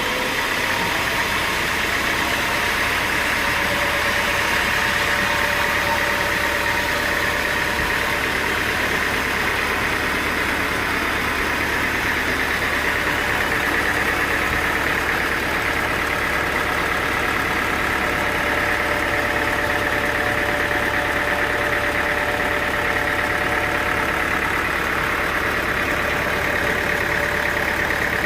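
Sawmill machinery running steadily: a constant engine-like drone with steady whining tones over it, unchanging throughout.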